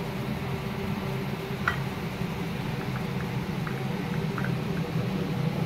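A metal slotted spoon scooping cooked rice and giving a few faint clicks against the pot and plate, over a steady low hum.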